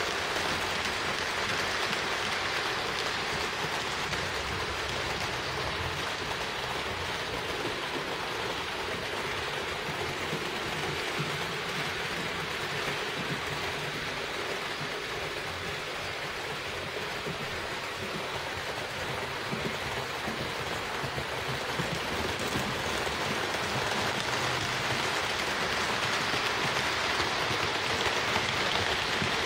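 HO-scale model trains rolling on Roco Geoline track, a steady rattling hiss of wheels and motors. It eases off in the middle and grows louder near the end as a Roco ALEX BR 183 electric locomotive passes close by.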